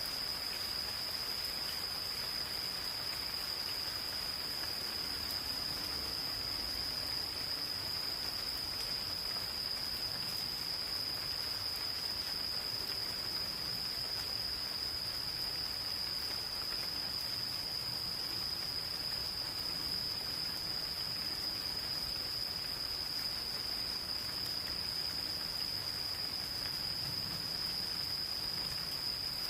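Insects calling in one unbroken high-pitched trill, over the steady hiss of gentle rain falling in a forest.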